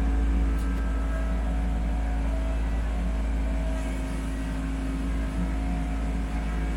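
Kubota B2650 compact tractor's three-cylinder diesel engine running steadily while the backhoe is worked, with a faint whine that comes and goes above the engine note.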